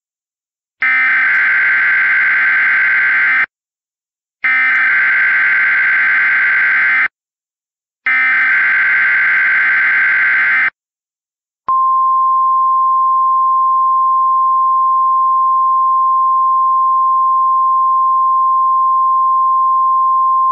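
NOAA Weather Radio alert tones: three harsh, buzzy bursts of SAME digital header data, each under three seconds with a short gap between, which encode the alert. About twelve seconds in comes the steady single-pitch 1050 Hz Weather Radio warning alarm tone, which sets off weather radio receivers ahead of the spoken message.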